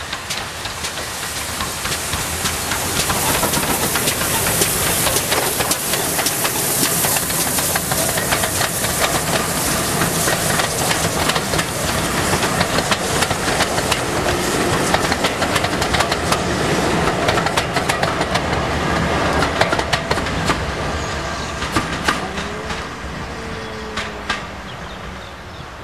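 A steam locomotive hauling passenger coaches passes close by, with steam hiss strongest as the engine goes past. The coach wheels then click steadily over the rail joints, and the sound fades away near the end as the train recedes.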